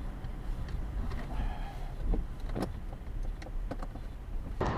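Car driving: a steady low rumble of engine and road, with a few scattered sharp clicks in the middle.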